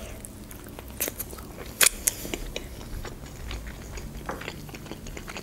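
Close-miked chewing of a fried chicken wing: wet mouth sounds and finger-licking with a scatter of sharp, crunchy clicks, the loudest about two seconds in.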